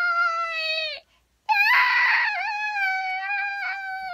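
A puppeteer's high-pitched falsetto character voice wailing in two long held notes, the second one starting rough and squealing, then holding steady.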